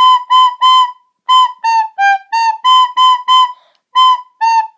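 A recorder playing a simple beginner's tune as a string of short, separately tongued notes on a few neighbouring pitches, about eleven notes with brief gaps between them.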